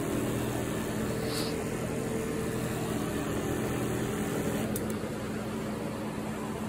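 Shurflo 12-volt diaphragm sprayer pump running steadily with an even electric hum.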